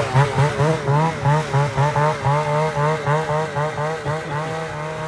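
Snowmobile engine at high revs, its pitch wavering up and down about three times a second as the throttle and track load change, fading slowly as the sled moves away.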